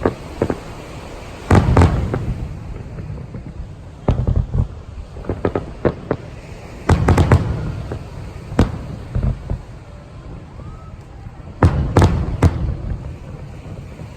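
Aerial fireworks shells bursting in irregular clusters of sharp booms with crackling in between, the heaviest groups about 1.5, 7 and 12 seconds in.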